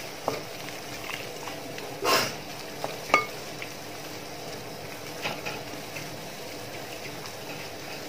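A spoon stirring thick mango pickle masala in a metal pot, with scattered scrapes, a louder scrape about two seconds in and a ringing clink against the pot just after three seconds, over a faint sizzle of the pickle cooking on the heat.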